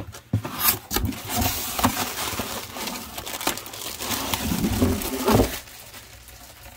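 Plastic air-pillow packing cushions crinkling and rustling as they are handled and lifted out of a cardboard box, with a sharp knock right at the start. The rustling dies down about a second before the end.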